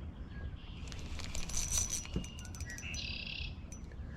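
Birds chirping, with a run of fast, high, evenly spaced ticks about a second in and a short high buzz near three seconds, over a low steady outdoor background.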